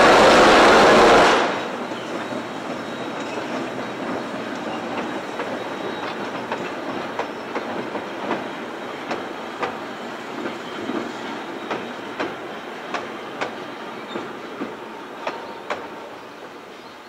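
Steam train crossing a viaduct: a loud rush from the passing steam locomotive Rx224 cuts off sharply about a second and a half in. Its carriages then roll on with a low rumble and a steady run of sharp wheel clicks over the rail joints, which fade away near the end.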